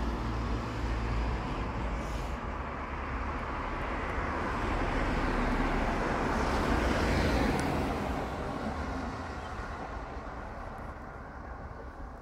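A vehicle passing by: a steady rushing noise that swells to a peak about seven seconds in, then fades away.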